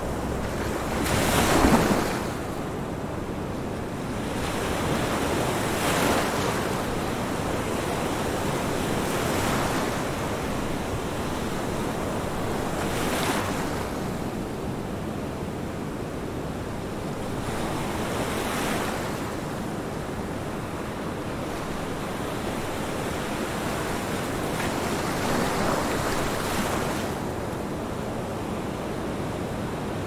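Ocean surf: a steady rush of waves that swells and ebbs every few seconds, the loudest swell about a second and a half in.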